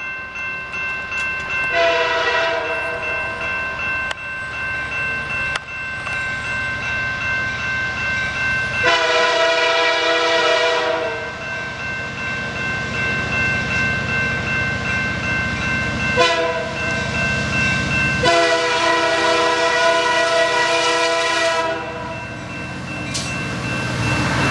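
Diesel locomotive horn on the lead CN SD75I sounding the grade-crossing signal: two long blasts, a short one, then a final long one. Under it the level-crossing warning bell rings steadily, and the locomotive's engine rumble grows louder near the end as it reaches the crossing.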